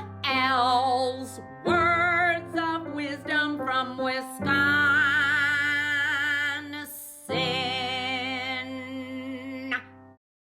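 Intro music: a woman singing in phrases with wide vibrato over held accompaniment chords, cutting off shortly before the end.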